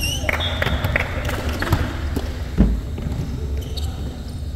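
Volleyball rally on an indoor court: short sneaker squeaks at the start, then quick knocks from the ball and running feet, and one heavy thud about two and a half seconds in, the loudest sound.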